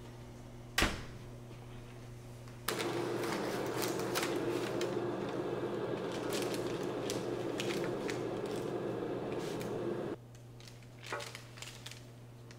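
An oven door shuts with a single sharp knock, then parchment paper rustles and a flaky, crisp croissant crackles for several seconds as it is handled and pulled apart by hand; a few light knocks follow as the pieces are set on a plate.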